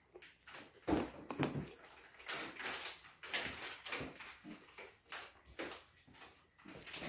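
Close eating noises: chewing and mouth sounds, with a fork clicking and scraping in a plastic container. The sounds come in irregular short clicks and hissy bursts.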